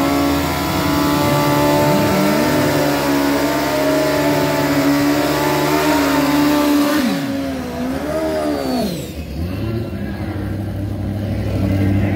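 An engine held at a steady high pitch. About seven seconds in its pitch drops sharply, then rises and falls once more, and after that a lower, steady engine hum carries on.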